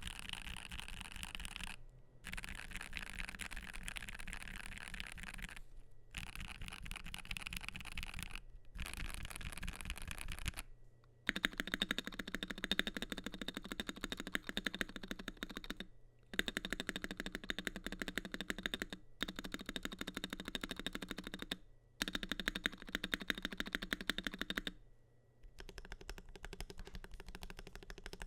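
Typing on an ASUS ROG Azoth mechanical keyboard with Gateron Oil King linear switches, PBT double-shot keycaps and an aluminium plate. The typing comes in continuous runs of rapid keystrokes broken by several short pauses. About eleven seconds in, the keystrokes become denser and sharper.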